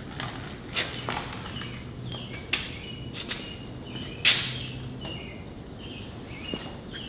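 Footsteps and sharp knocks and taps of a heavy truck steer wheel and tire being handled on a concrete shop floor, the loudest knock about four seconds in. Short high chirping tones repeat faintly in the background.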